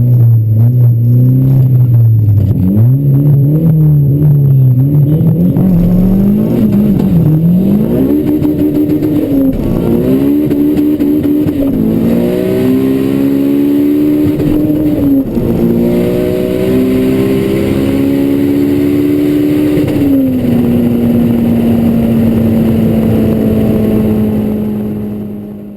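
Honda Civic engine and exhaust revving up and down several times, then pulling through the gears, the pitch climbing and dropping back at each shift. It settles to a steady note and fades out near the end.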